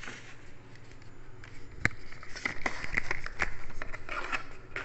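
Handling noise of camera gear and a plastic cooler box: one sharp click a little under two seconds in, then a run of clicks, clatters and rustling as things are moved about.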